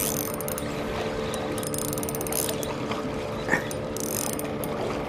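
Ryobi Micro Power 500 spinning reel being cranked steadily as a metal jig is retrieved: a continuous gear whir with fine irregular clicking, and one short knock about three and a half seconds in.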